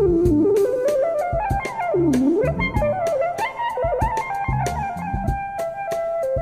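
Background music: an instrumental passage with a lead melody that slides down and back up in pitch about two seconds in, over steady drums and bass.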